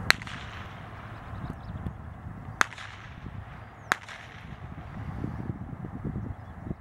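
Three sharp blank-pistol shots: one right at the start, then two more about two and a half and four seconds in, each with a short echo. These are the gunshot stage of a dog temperament test.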